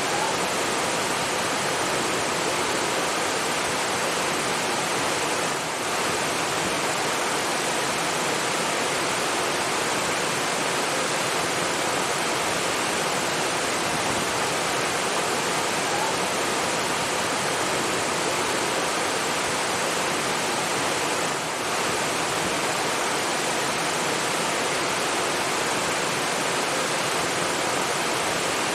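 Steady rushing water, a dense even hiss like a waterfall or fast stream, dipping briefly twice.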